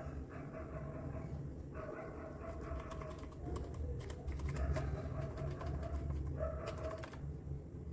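A dog whining in drawn-out, steady-pitched whimpers, several in a row. A run of sharp clicks comes in the middle, and a low hum runs underneath.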